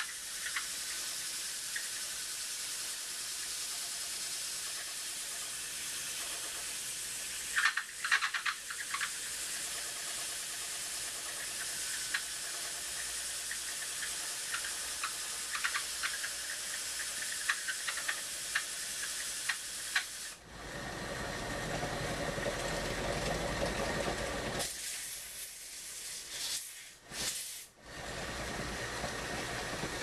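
Steady hiss of a sanding block against the rim of a spinning wooden sawmill wheel, driven by a small electric motor through a belt, as a crown is sanded onto the wheel. A few rattling clicks come about eight seconds in. About twenty seconds in the sound turns suddenly deeper and fuller, then dips out twice near the end.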